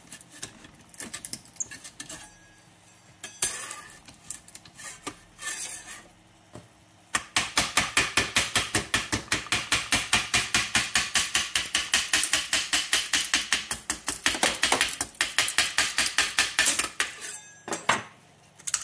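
Metal putty knife scraping and knocking against the 3D printer's bed and a printed plastic part as it is pried off. Scattered scrapes and clicks, then from about seven seconds in a rapid, even run of sharp metallic strokes, several a second, that stops about a second before the end.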